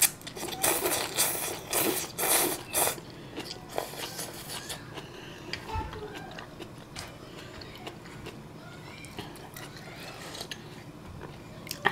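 A person slurping ramen noodles in several loud bursts over the first three seconds, then chewing more quietly with small wet clicks.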